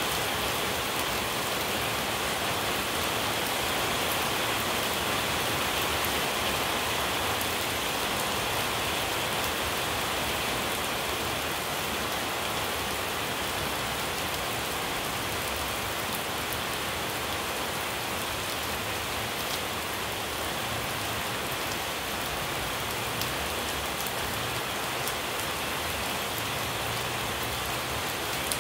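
Steady rain falling on puddled ground and tree leaves: an even hiss with scattered ticks of single drops.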